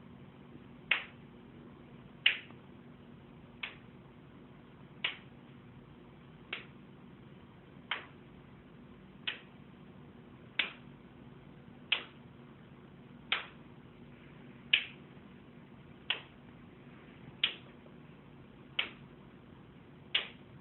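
A hand repeatedly punching a raw chicken to record punch sound effects: about fifteen sharp smacks in a steady rhythm, roughly one every second and a half, some harder than others.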